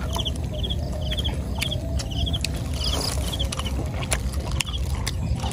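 Insects chirping in short rapid trills, about two a second, over a steady low rumble, with occasional sharp clicks.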